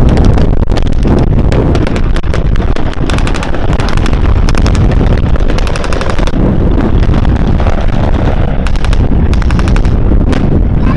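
Repeated bursts of rapid machine-gun fire from a WWII air-battle demonstration, over a constant low rumble of piston warbird engines.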